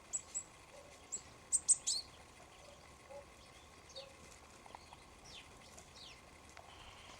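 Small wild birds calling: a quick run of short, high chirps in the first two seconds, then a few fainter calls that slide downward in pitch.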